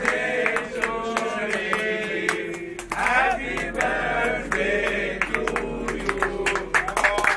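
A group of people singing together with hand claps.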